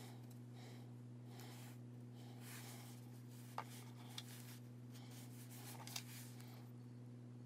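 Soft rustling and a few light clicks of hands handling craft pieces on a felt board, over a steady low electrical hum.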